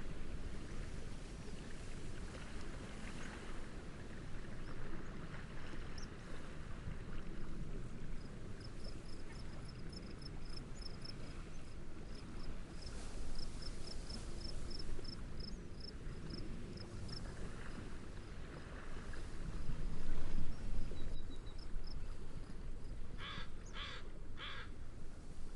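Steady wind and gentle waves, swelling briefly about twenty seconds in. A rapid run of high, evenly spaced chirps sounds through the middle, and three harsh bird calls in quick succession come near the end.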